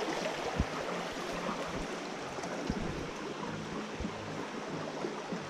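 Shallow rocky stream running steadily, with a few dull knocks from the camera being handled.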